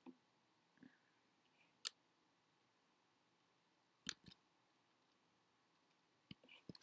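Near silence broken by about seven scattered computer mouse clicks, the sharpest near two seconds and four seconds in.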